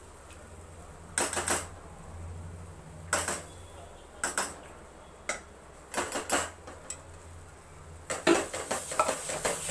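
A spoon scraping and knocking against a steel pot in short clattering bursts, about a second or two apart, as cooked moong dal is scraped out into a stainless steel pan. Near the end the clatter grows denser and louder as the dal is stirred in the pan.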